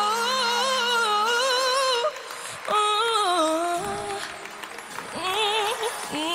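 Female singer's live solo vocal in a slow ballad. She holds a long note with wide vibrato for about two seconds, breaks briefly, then sings shorter phrases with vibrato, softer in the second half.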